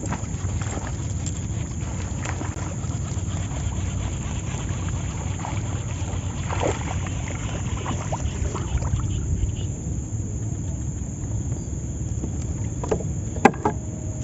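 Steady low rumble of a boat under way on the water, with a few faint knocks and one sharp knock near the end.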